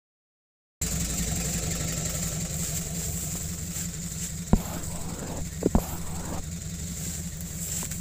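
Off-road 4x4's engine idling steadily, starting a moment in, with a few short sharp knocks and clicks about halfway through.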